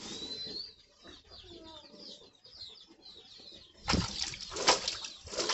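Faint chirping of small birds, then from about four seconds in a crumpled plastic bag waved by hand, crackling and rustling in several loud swishes.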